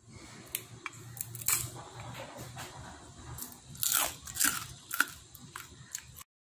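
Roasted dried Alaska pollock crunching and crackling as it is pressed and broken apart: a scatter of sharp, dry snaps, with a few louder ones about four to five seconds in.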